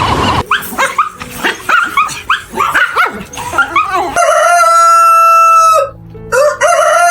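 Farm animal calls: a rapid flurry of short yelping calls that rise and fall in pitch, then two long, high, steady calls of about a second and a half each.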